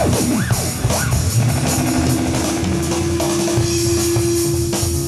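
Live hard-rock band with drums and bass: a theremin swoops up and down in pitch, then a long held note comes in about two seconds in.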